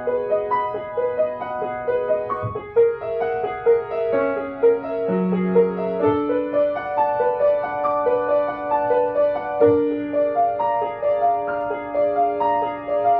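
Acoustic grand piano played solo: a continuous run of quick notes in the middle range, with low bass notes struck every few seconds.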